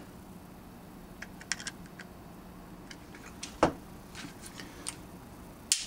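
Scattered light clicks and taps from handling a Grendel P12's plastic pistol frame and a screwdriver, with a louder single click about three and a half seconds in and a quick run of sharper clicks at the end.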